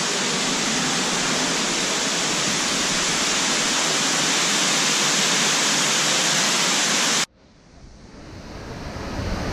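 A steady, even hiss like filtered noise, which starts and stops abruptly and cuts out about seven seconds in; a quieter sound then fades up.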